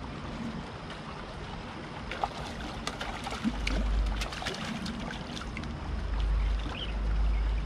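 A hooked fish splashing and thrashing at the water's surface as it is drawn in on a hand pole, a cluster of sharp splashes a few seconds in, over steady flowing river water. Wind buffets the microphone with a low rumble in the second half.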